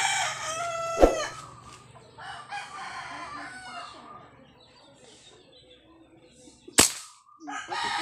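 A rooster crowing, its long call ending about a second in, and crowing again a couple of seconds later. A sharp crack comes about a second in, and a louder one comes near the end.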